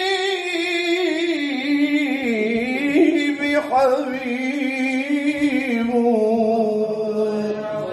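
A man singing a nasheed into a microphone, drawing a syllable out over long, wavering held notes.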